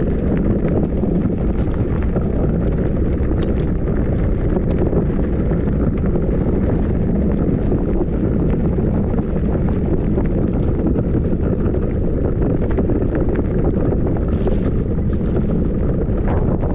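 Wind buffeting the microphone: a steady low rumble, with faint scattered ticks.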